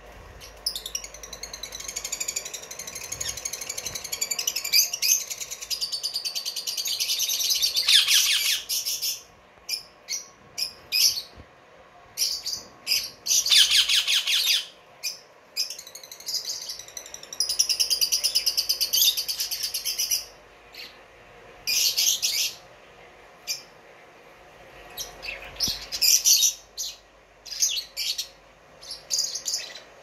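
Caged small parrots (lovebirds and budgerigars) chirping and chattering, high-pitched. Long runs of rapid chatter, with fast trilled bursts, are broken by short pauses and sharp single chirps.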